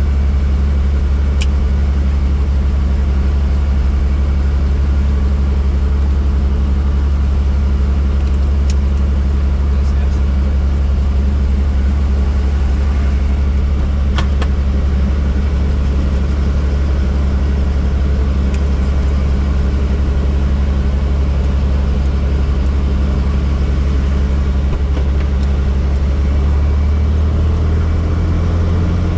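Helicopter running, a loud steady low drone from the rotor and engine with a hiss above it; the pitch of the drone shifts slightly near the end.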